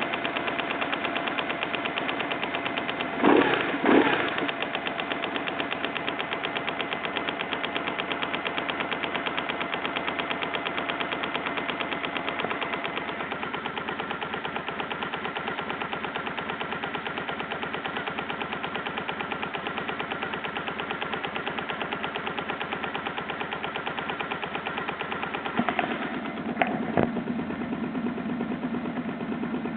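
BMW R1100GS boxer-twin engine running with a fast, even ticking, which the owner suspects comes from a throttle body. Two brief louder bursts come about three seconds in and again about 26 seconds in.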